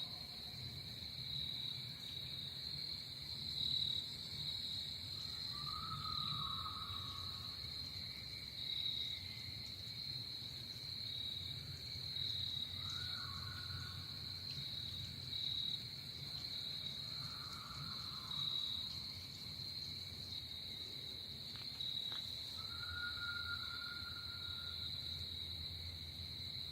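Night insect chorus: a steady, high-pitched cricket trill, over a faint low rumble. A few faint, level calls, each about a second long, come every several seconds.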